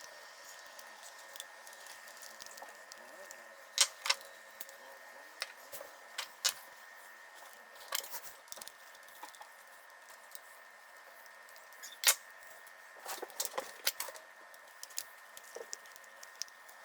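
Scattered clicks and taps of small parts and tools being handled on an RC crawler's drivetrain, the loudest about four seconds in and again about twelve seconds in, with a quick run of taps a little later. A faint steady high hum underneath.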